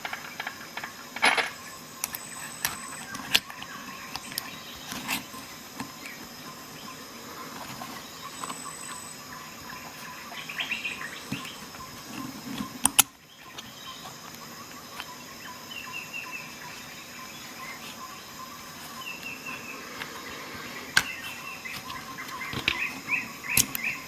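Small metal tool accessories clicking and knocking as they are worked into and out of a nylon sheath's pockets, with scattered sharp clicks, the loudest about halfway through, over a faint steady hum.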